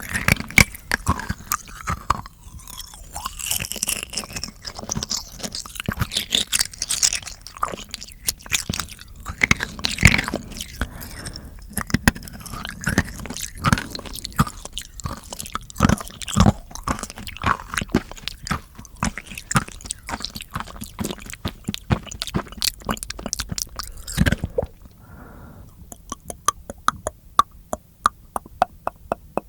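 Close-miked ASMR mouth sounds: wet clicking and chewing-like noises. About 24 seconds in they give way to a quieter, steady series of sharp clicks.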